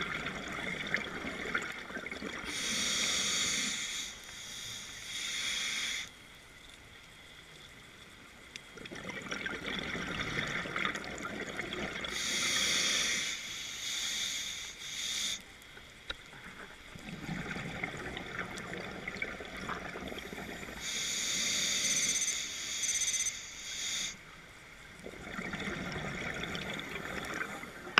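Scuba diver breathing through a regulator underwater: slow, regular breaths about every eight seconds, each a rush of air followed by a burst of hissing, bubbling exhaust, with short lulls between.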